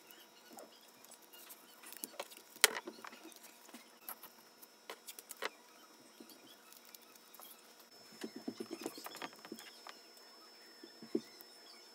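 Scattered light clicks and taps of parts and tools being handled, one sharper click a few seconds in and a quick run of rattling ticks about eight seconds in.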